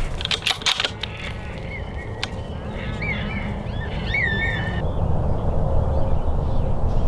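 A few sharp clicks, then a run of short bird calls that rise and fall in pitch, over a steady low wind rumble.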